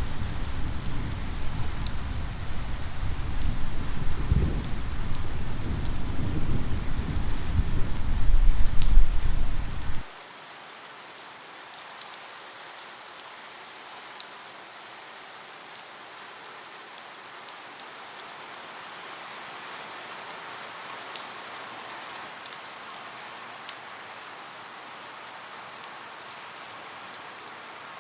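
Rain ambience: steady rain with scattered drops ticking, under a heavy low rumble of thunder for about the first ten seconds that cuts off abruptly, leaving only the rain.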